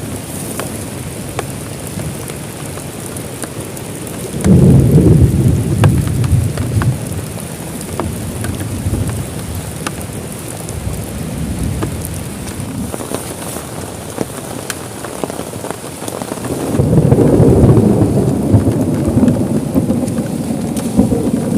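Heavy rain falling steadily, with sharp ticks of individual drops, and two long rolls of thunder: one about four seconds in and another starting near the end.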